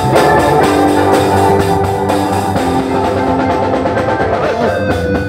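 Rock band playing an instrumental passage between sung lines: a drum kit under steady held chords.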